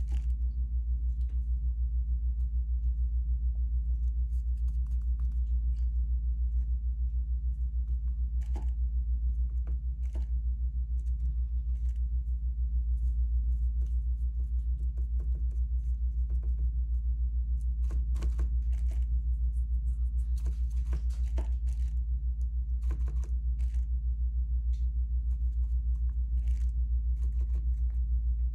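Steady low hum throughout, with faint scattered rustles and small crackling ticks of hands working on a painting with a glue brush and golden leaf.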